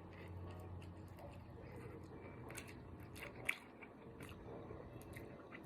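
Faint chewing and mouth sounds of a person eating instant ramen noodles, with small scattered clicks and one sharper click about three and a half seconds in.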